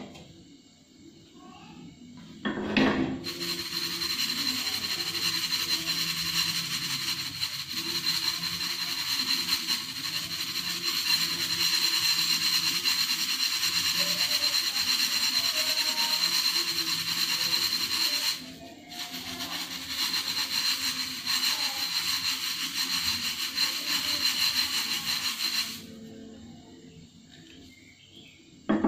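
Silica gel beads rattling as they are swirled and shaken in a metal frying pan over a gas flame, a dense continuous rattle while the saturated beads are being dried out. It starts with a knock about three seconds in, breaks off briefly about two-thirds of the way through, and stops a few seconds before a clunk of the pan on the burner at the very end.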